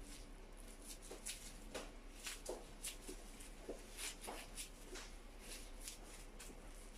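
Light rustling and small taps of things being handled: a dozen or so short crinkles and clicks at an irregular pace.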